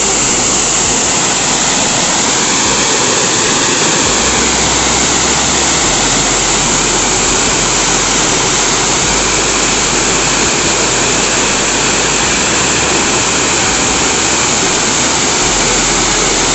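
Waterfall cascading down a rock face: a loud, steady rush of falling water.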